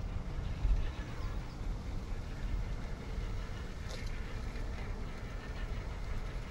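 Low rumble of wind on the microphone over the faint whine of RC rock crawlers' electric motors as they crawl on rock, with a light click about four seconds in.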